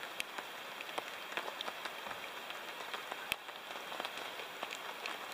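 Steady rain in a forest, with individual drops ticking at irregular intervals and one sharper tap about three seconds in.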